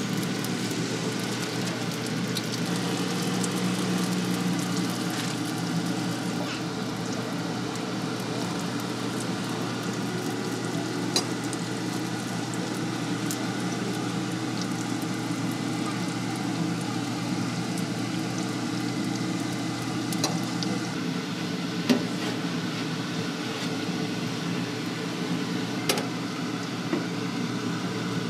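Deep-fryer oil sizzling steadily around a batch of small balls of dough, over a steady low hum. A few sharp metallic clicks of tongs against the fryer or strainer stand out, the loudest about two-thirds of the way through.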